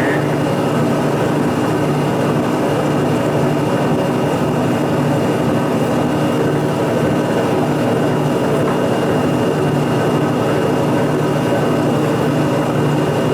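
A milling machine running steadily at constant speed: an even motor hum with a thin high whine above it.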